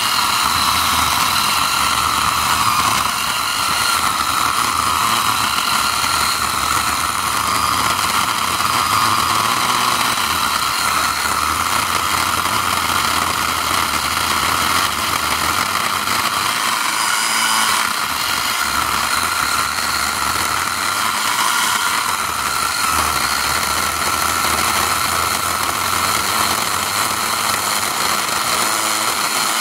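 Craftsman V20 10-inch cordless chainsaw running steadily under load, its chain biting slowly into a hard, dense hardwood stump, "like cutting through concrete".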